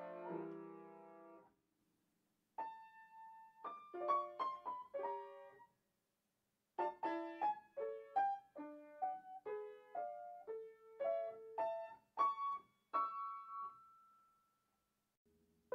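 Solo piano playing a slow, sparse melody of single notes and small chords in short phrases, with pauses of silence between them; a held note near the end fades away.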